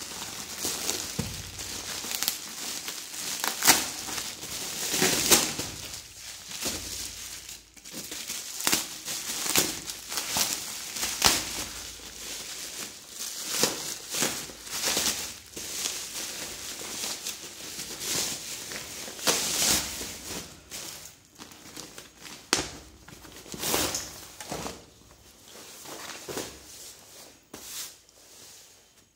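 Plastic courier mailer and bubble wrap crinkling and rustling in irregular bursts as they are pulled open and off a backpack by hand, dying down in the last few seconds.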